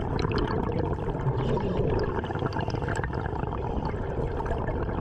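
Underwater sound at the seabed: a steady watery rush with many small clicks and crackles scattered through it.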